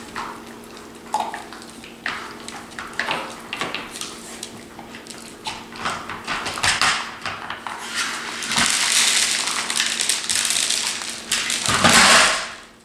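Bull terriers nosing at a plastic dog puzzle toy on a hard floor: irregular clicks and clatter of its plastic sliders and lids, with kibble being crunched. A louder scrubbing noise runs through the last few seconds.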